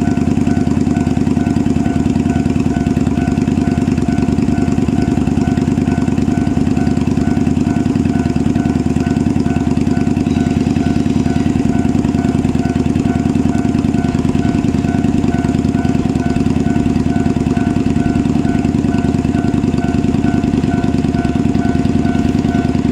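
KiHa 47 diesel railcar engine idling steadily with a knocking diesel beat, unchanged throughout. Over it a level crossing alarm keeps ringing with an even, repeating high ding.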